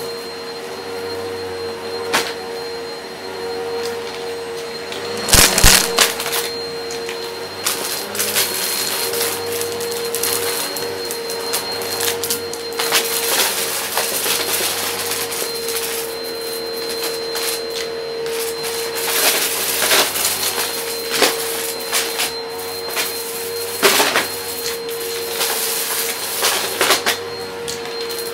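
Shark upright vacuum cleaner running over carpet, its motor holding a steady tone, with scattered clicks and crackles as small debris is sucked up; the loudest burst of rattling comes about five seconds in.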